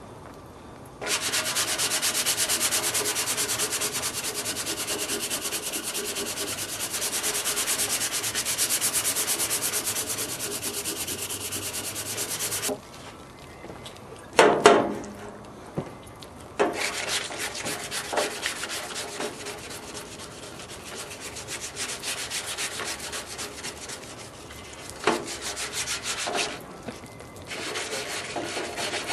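Hand-held brush scrubbing a rusty spot on a sheet-metal stove drawer in fast back-and-forth strokes, knocking off rust stain loosened by naval jelly while it is still wet. The scrubbing stops for a few seconds around the middle, with one knock, then resumes more softly.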